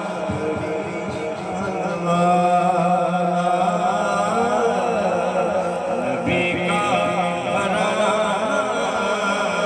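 Male voice chanting a naat, an Urdu devotional song, in a wavering, ornamented melody over a steady low drone.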